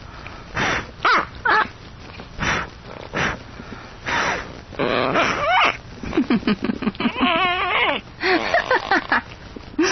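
A dog making sharp, huffing breaths and snorts, then a run of wavering, whine-like vocal sounds in the second half. It is reacting to air being blown at its face.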